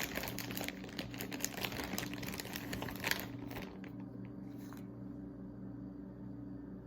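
Crinkling and clicking of fragrance tester packaging being rummaged through and handled, busiest for the first three and a half seconds, then quieter.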